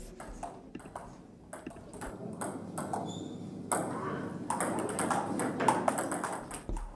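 Table tennis balls clicking off the table and rubber bats during a serve and rally, with more clicks from a neighbouring table. A hazy background noise in the hall gets louder a little past halfway.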